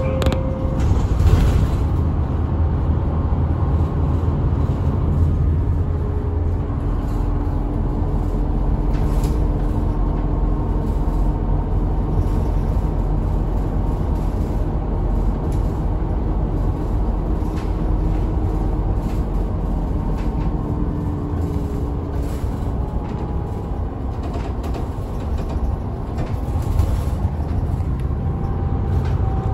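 Route bus driving, heard inside the cabin: a steady low rumble of engine and road noise with a faint whine that shifts in pitch, and a few light rattles.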